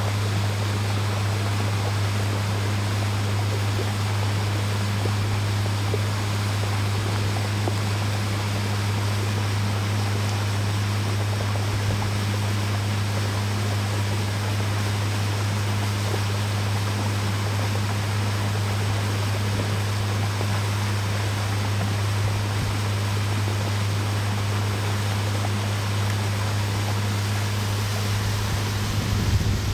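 Pontoon boat's outboard motor running steadily at cruise, a constant low drone under the even rush of water and wind. Near the end, wind starts buffeting the microphone.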